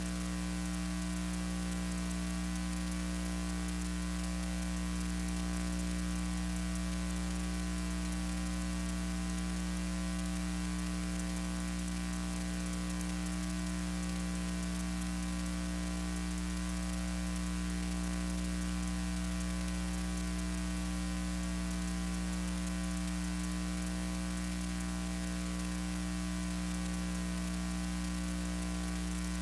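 Steady electrical hum under an even hiss, with no other sound: the noise of a transfer of silent archival film.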